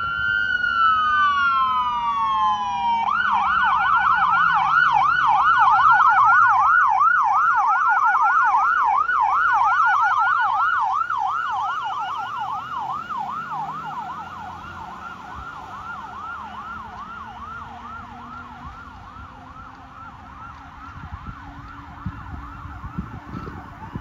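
Fire truck's electronic siren on a response run. A wail falls in pitch, then about three seconds in it switches to a fast yelp. The yelp is loudest as the truck passes and grows fainter as it drives away.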